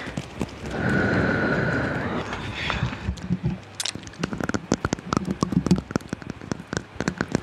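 Close-miked ASMR mouth sounds: a short steady high tone about a second in, then a long run of quick, irregular small clicks and taps from the mouth.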